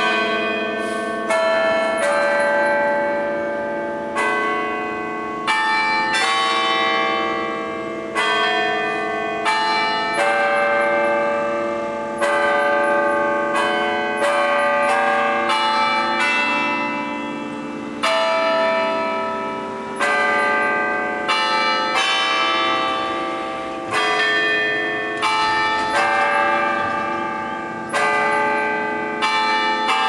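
Tower bells of the Morehead-Patterson Bell Tower ringing a slow tune. One bell is struck every second or two, each at a different pitch, and each rings on and fades under the next.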